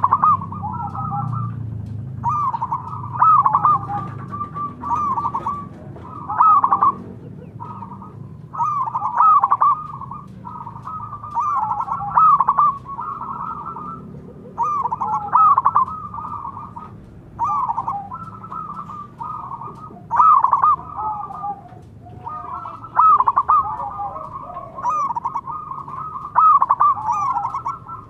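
Zebra doves cooing: phrase after phrase of quick, rolling coo notes, a new phrase every two to three seconds.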